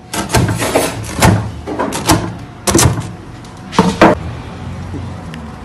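A large knife chopping through a baked pide's crisp crust onto a wooden board, about ten sharp crunching knocks that stop about four seconds in.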